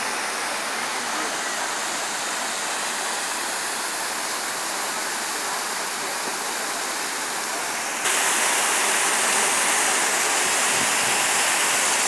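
Water of a man-made rock waterfall cascading over boulders: a steady rushing noise that becomes abruptly louder and brighter about eight seconds in.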